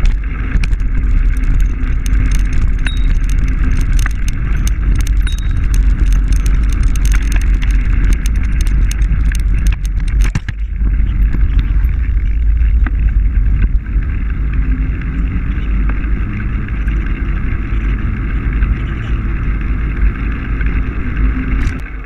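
Bicycle being ridden: a loud, steady low rumble of wind and rolling, with a rapid clatter of rattling clicks that stops suddenly about ten seconds in.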